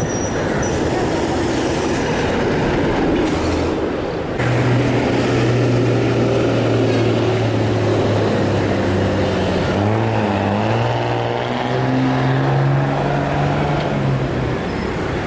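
Passenger train running: a continuous rumble and rattle with a steady low drone that grows louder about four seconds in and shifts in pitch around two-thirds of the way through.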